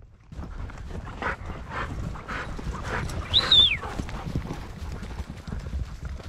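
A dog gives a single high, wavering yelp about three and a half seconds in that slides down at the end. Scattered knocks of movement and a low rumble run through it.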